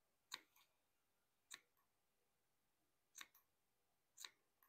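Small scissors snipping through fabric: four quiet snips about a second apart, each with a lighter click of the blades just after.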